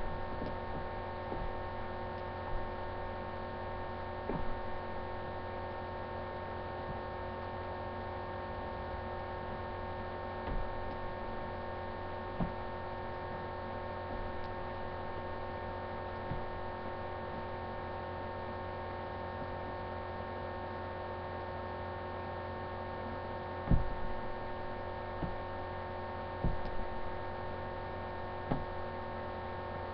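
Steady electrical hum made of several fixed tones. A few short knocks and taps stand out from it, the loudest about 24 seconds in, as painting tools and a jar are handled on the canvas.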